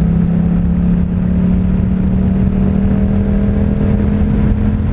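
Yamaha FZ-07's 689 cc parallel-twin engine through a Two Brothers full exhaust, pulling under gentle acceleration, its pitch creeping slowly upward. A low wind rumble on the microphone runs beneath it.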